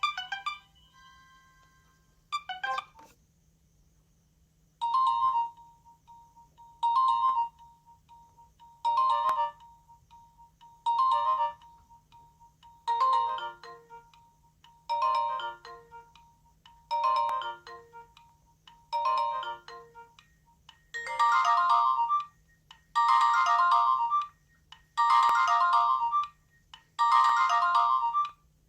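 Nokia 2310 mobile phone playing a ringtone: a roughly one-second phrase of electronic notes repeated about every two seconds, the phrases growing fuller and more spread in pitch about three quarters of the way in. It is preceded by the end of a previous tone and a short blip.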